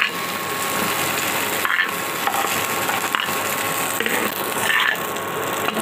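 Hot oil sizzling and crackling steadily in a wok, with a few light clicks and scrapes of a metal spatula as fried cauliflower florets are lifted out.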